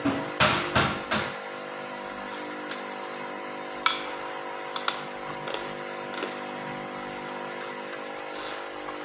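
Eating noises: a quick run of clicks and scrapes in the first second, then a couple of single sharp clicks, over a steady background hum.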